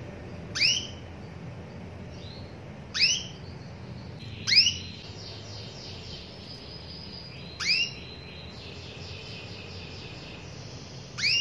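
Female domestic canary calling for a male: five loud, short, upward-sweeping call notes spaced one and a half to four seconds apart, with soft high twittering in between.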